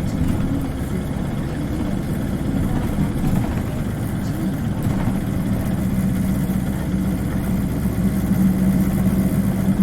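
Engine of an Isuzu Cubic KC-LV380N city bus running, heard from inside the passenger cabin: a steady low hum with a droning tone that grows stronger in the second half.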